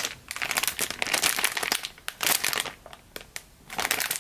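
Clear plastic squishy packaging crinkling as hands handle it, in several bursts with short pauses.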